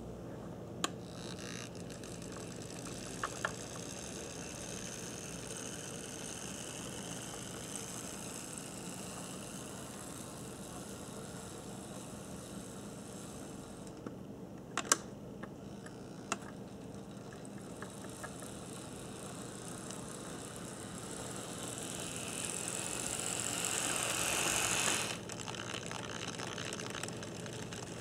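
Mehano HO-scale model steam locomotive running along the track, its electric motor and gears whirring steadily with a high whine. There are a few sharp clicks. Near the end the whirr swells over a few seconds, then cuts off suddenly.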